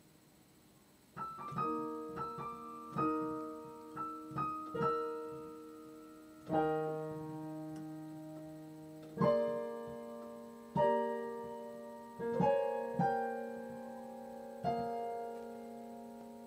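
Piano being sight-read slowly: after about a second of quiet, a string of separate notes and chords, each struck and left to ring and fade before the next, with longer held chords in the second half.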